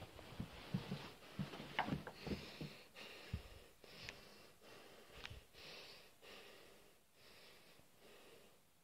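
A man breathing heavily close to the phone's microphone, a run of breaths in and out about once a second. Low knocks and rubbing from the phone being handled come in the first few seconds.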